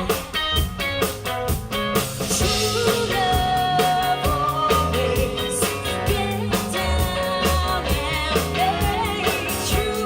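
Live band playing a rock-pop song, with a woman singing lead over a steady drum beat.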